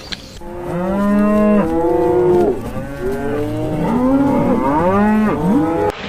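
Cattle mooing: a series of long, loud moos from about half a second in, several overlapping as if from more than one animal, each call arching up and falling in pitch.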